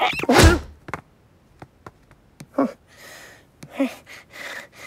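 Cartoon cat slamming into a window pane with a single loud thunk, together with a short falling cry. This is followed by a few small clicks, brief grunting squeaks and puffing breaths as the stunned cat recovers.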